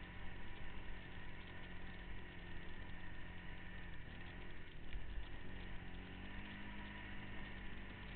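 An off-road vehicle's engine running on a trail. Its pitch drops about four seconds in and rises again over the next couple of seconds, as the throttle eases off and comes back on. There is a low thump about five seconds in.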